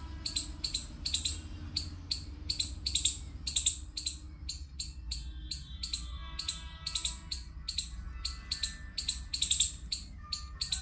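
Background music: a fast, even beat of crisp high percussion, with a melody of held notes coming in about halfway through.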